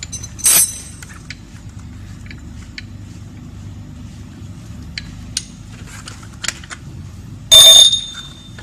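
Metal scooter hardware and tools clinking: light taps and clicks as loosened bolts and parts are handled, with two loud ringing metal clanks, one about half a second in and one near the end, the second ringing on briefly. A steady low hum runs underneath.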